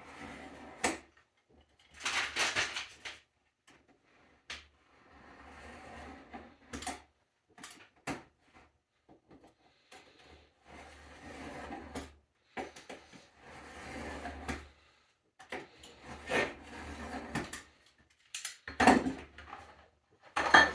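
Utility knife scoring a thin ABS plastic sheet along a straight edge: about seven scraping passes, each a second or two long, with light clicks and knocks between them.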